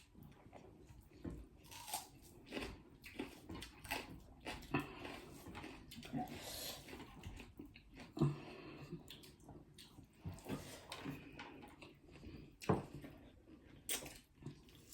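Close-up chewing and mouth sounds of people eating chicken curry and roasted chicken, with irregular soft smacks and clicks.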